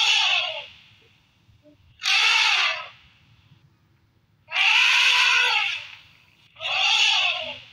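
Elephant trumpeting, a recorded call played four times about two seconds apart, each blast rising then falling in pitch.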